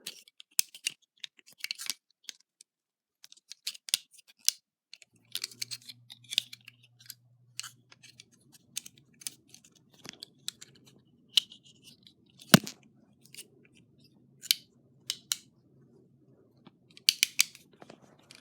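Leatherman multitool being handled: irregular metal clicks and snaps as its tools and blade are folded out and closed, with one louder snap about twelve seconds in.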